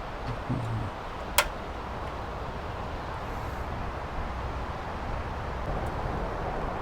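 Steady wind noise, with one sharp click about a second and a half in, like a portable gas stove's igniter being struck.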